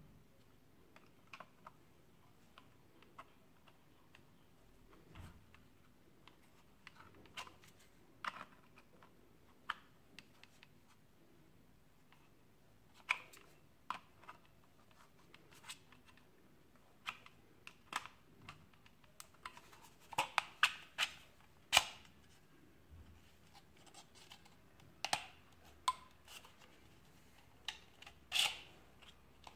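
Hard plastic clicks, taps and knocks as a Hubsan X4 Star Pro H507A quadcopter and its battery are handled and turned over. The clicks are scattered and irregular, sparse at first and coming thicker and louder in the second half.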